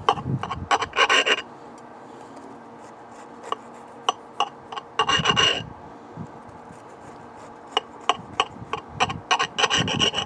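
Knife sawing through a crisp baked pizza-dough crust, scraping against the plate, in three bouts of quick strokes, with sharp clicks of the knife and fork on the plate in between.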